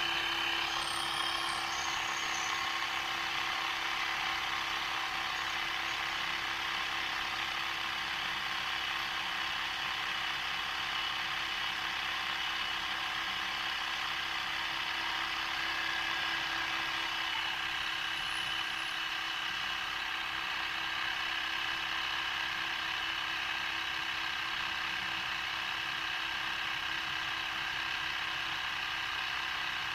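Small portable electric tyre inflator running steadily, its motor and compressor holding one even pitch while it pumps up a repaired tubeless tyre.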